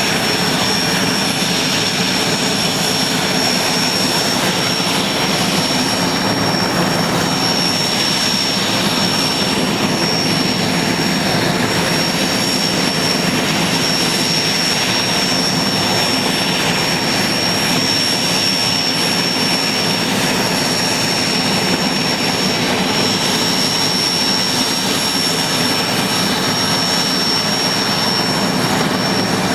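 IAR 330 Puma helicopter's twin turboshaft engines and rotor running steadily, with a loud even turbine noise and a steady high-pitched whine.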